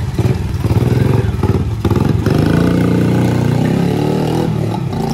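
Small motorcycle engine revving, then rising in pitch as the bike accelerates away.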